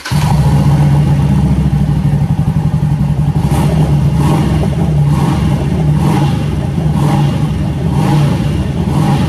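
Harley-Davidson Sportster 1200's air-cooled V-twin starting on a freshly installed battery: it catches at once and runs loud and steady. From about three and a half seconds in, a light surge comes about once a second.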